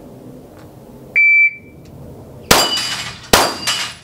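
A shot timer's single beep, then just over a second later two pistol shots from a Glock, less than a second apart, each followed by the ring of a struck steel plate.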